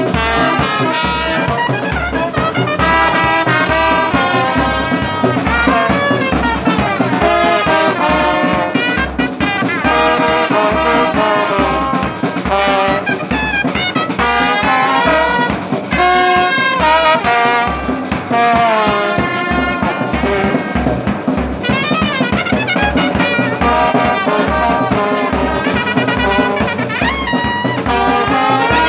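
Brass band music, with trumpets and trombones playing a melody over a steady low drum beat.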